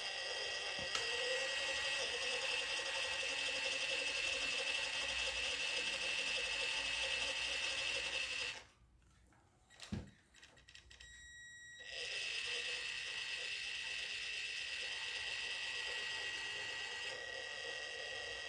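Small electric drive motor and gears of a radio-controlled toy Mini Cooper S running steadily, with a constant whine. It stops about halfway through, there is a single click, and it starts running again a few seconds later.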